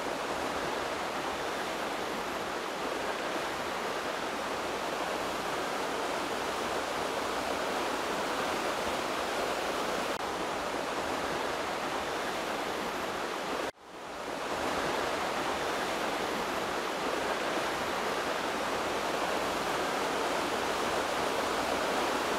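Kermankoski river rapids, water rushing and foaming over the rocks in a steady roar. The sound cuts out for an instant about 14 seconds in and swells back.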